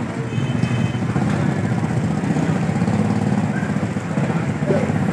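Steady low engine rumble of a busy street, with a brief high tone about half a second in.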